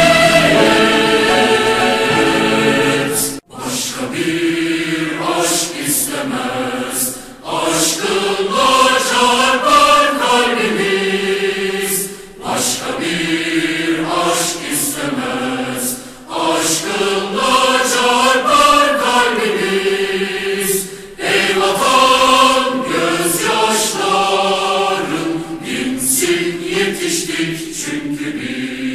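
A choir singing a Turkish patriotic march, in sung phrases a few seconds long with brief breaks between them.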